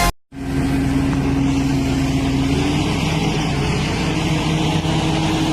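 A large engine running steadily at a constant speed, its pitch shifting slightly about three seconds in. It starts right after music cuts off sharply at the very beginning.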